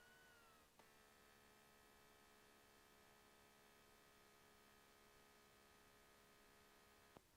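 Near silence: a faint steady electrical hum made of several tones. One higher tone dips slightly about half a second in, and there are faint clicks about a second in and near the end.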